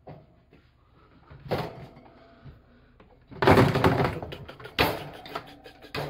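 Sudden knocks and a loud burst of clattering as a startled tufted capuchin lunges across a wire pet pen and the handheld camera is jolted, with a sharp bang near the end.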